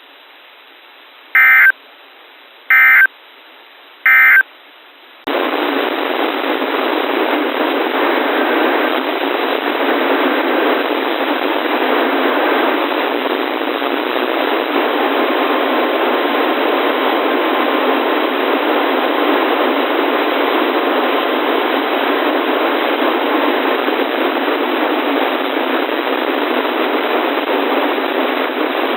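Three short buzzy EAS/SAME digital data bursts about 1.5 seconds apart, the end-of-message signal that closes the severe thunderstorm warning. About five seconds in, the weather radio drops into loud, steady static hiss with faint tones in it.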